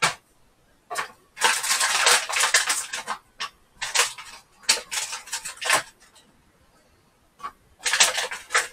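Kitchen knife dicing sliced ham on a chopping board: runs of quick chopping knocks, three bursts with short pauses between.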